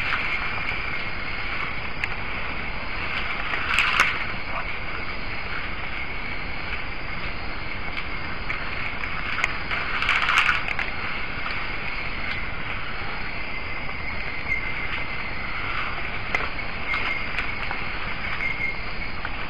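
Steady night rainforest background of insects with a constant high-pitched whine, broken by two short, louder rustles about four and ten seconds in as forest elephants move by the mirror.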